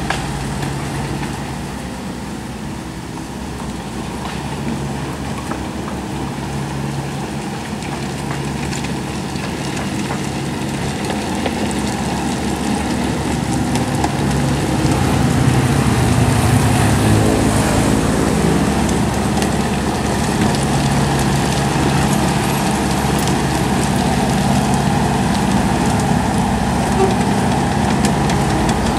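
Komatsu PC75UU mini excavator's diesel engine running steadily while it works. It grows louder around the middle and stays at the higher level.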